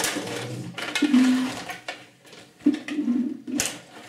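STIGA Play Off table hockey game in play: plastic players on their rods clacking against the puck and the board in irregular sharp knocks. Between the knocks come short hums of the robot's electric motors turning and sliding the rods.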